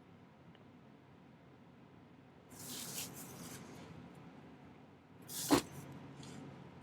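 A steel pin point scratching a line into sterling silver sheet: a short scraping stroke about two and a half seconds in, then a sharp click, the loudest sound, about five and a half seconds in, followed by a brief faint scrape.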